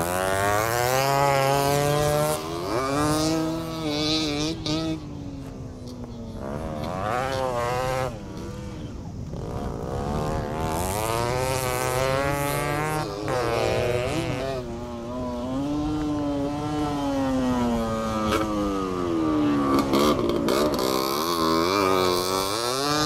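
Motorcycle engines revving up and easing off over and over as the bikes accelerate and slow on a dirt track. The pitch climbs and falls every few seconds.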